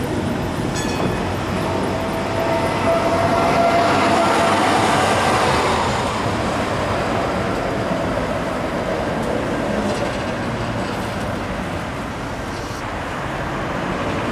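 Vintage tramcar rolling along its rails and passing close by, loudest a few seconds in, with a steady whining tone over the running noise.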